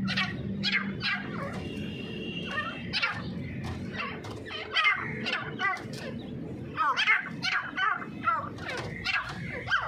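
Grey francolins calling: a scattered run of short, sharp chirping notes, some in quick clusters, loudest about five and seven seconds in.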